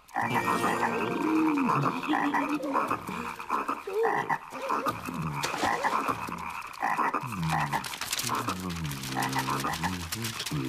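Cartoon character's wordless, croaky grunts and mumbles, with the pitch sliding up and down between short breaks. Near the end comes a long, low, drawn-out groan.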